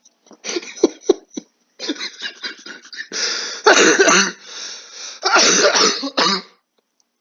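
A person in a loud coughing fit: a run of short coughs and throat clearing, then two longer, harsh coughing bursts in the middle and near the end.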